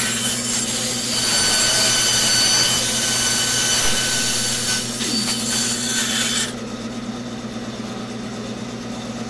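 Bandsaw cutting through a wooden block: a steady high hiss of the blade in the wood over the saw's humming motor. About six and a half seconds in the cut stops, and the saw runs on free with only its steady hum.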